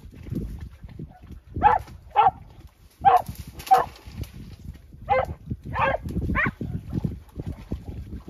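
Podenco orito español dog giving short, high yelping barks, seven in all: two pairs and then three close together, over the rustle of dry grass and brush being pushed through.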